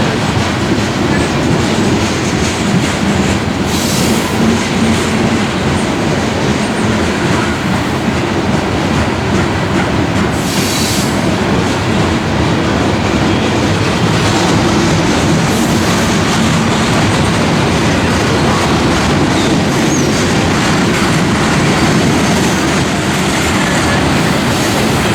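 Freight cars of a coal train rolling past steadily, wheels clacking over the rail joints. There are brief high-pitched flare-ups from the wheels about four seconds in and again near eleven seconds.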